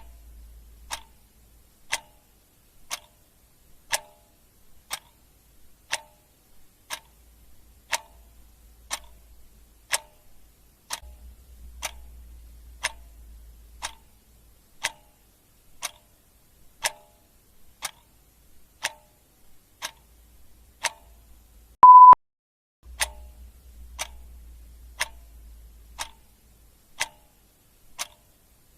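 Clock-ticking sound effect, one tick a second, steady and even. A single short, high electronic beep cuts in about three-quarters of the way through, louder than the ticks.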